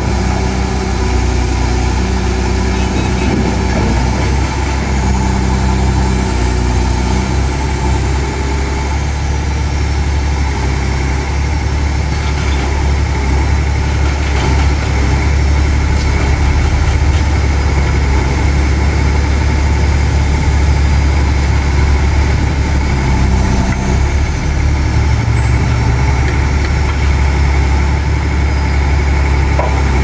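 BEIYI excavator-mounted hydraulic vibratory pile hammer running on a Hitachi excavator, vibrating a steel pile into the ground: a loud, steady low hum over the excavator's diesel engine under load.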